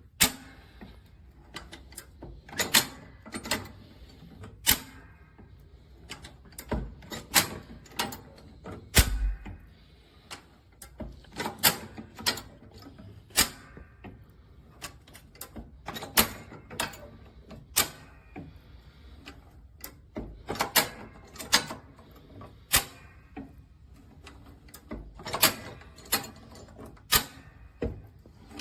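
Irregular sharp metal clicks and clanks, several to a few seconds apart with some louder knocks among them, from a 48-inch high-lift farm jack being handled and ratcheted.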